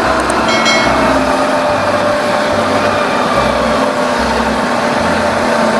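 Concrete mixer truck driving along a street: steady diesel engine and road noise with a low hum.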